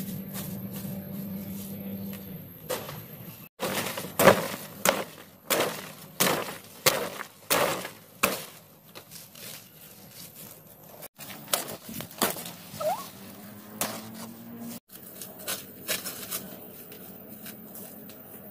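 Footsteps crunching through dry leaf litter and twigs, a regular run of crackling steps at walking pace, in two stretches.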